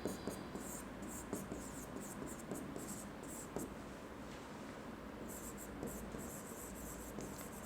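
Faint scratching of handwriting: short writing strokes with brief pauses between them, and a few light ticks.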